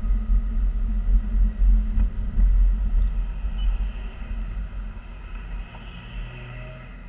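Low road and engine rumble inside a moving car's cabin, dying away over the last few seconds as the car slows. About three and a half seconds in, a single short dashboard beep sounds as an icy-road warning comes up on the display.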